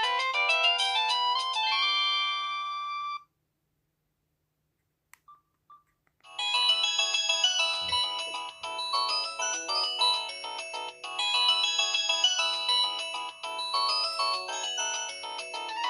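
Samsung SM-B312E mobile phone playing its built-in polyphonic ringtones: one melody stops about three seconds in, and after a pause of about three seconds a different, busier melody starts and keeps playing.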